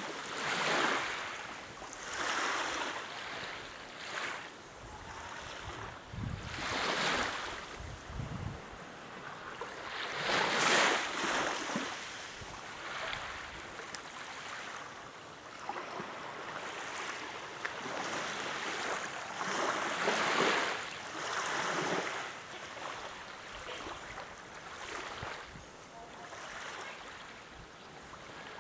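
Small sea waves lapping, washing in and fading in soft swells every two to three seconds.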